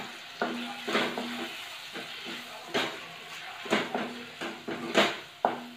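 Wooden spatula stirring vegetables in a non-stick kadai, with irregular knocks and scrapes against the pan over a soft sizzle of frying food.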